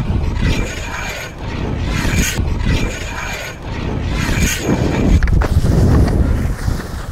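Skis sliding down a long metal handrail, the edges scraping on the steel with a high metallic ringing that comes in twice. Under it, a heavy rumble of wind and movement on the skier's body-worn microphone.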